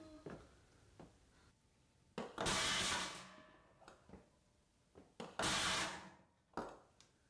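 A fire extinguisher struck against a locked refrigerator door to break the lock: two heavy metallic blows about three seconds apart, each ringing on for about a second, then a lighter knock soon after the second.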